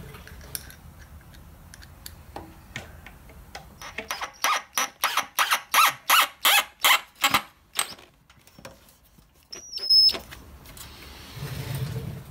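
Cordless drill driving a screw through a stainless steel strip into a wooden crossbar, giving a run of rhythmic squeaks about three a second for some three seconds midway. Near the end comes a short high squeal and a sharp click.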